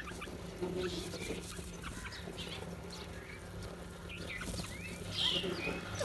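Bulbuls, mynas and house crows feeding together and calling: a scatter of short chirps and squeaky calls, with a louder call about five seconds in.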